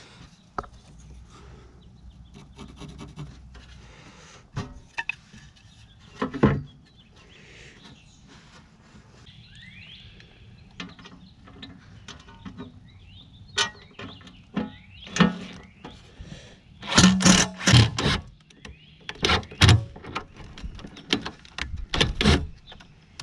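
Wooden boards being handled and fitted against the aluminium jon boat hull: scattered knocks, scrapes and clicks. A run of loud, irregular knocks comes in the last few seconds.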